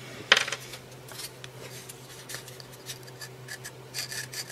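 Small metal and plastic parts of a disassembled Kress angle grinder being handled and worked on: one sharp click about a third of a second in, then scattered light clicks and scraping. A faint steady low hum runs underneath.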